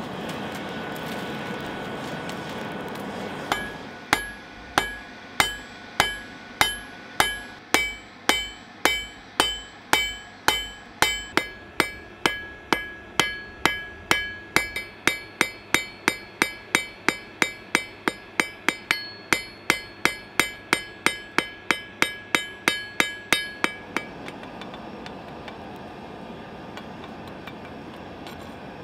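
Blacksmith's hammer striking metal on an anvil, a steady run of ringing blows about two a second. It starts a few seconds in and stops about five seconds before the end. A steady rushing noise fills the stretches without hammering.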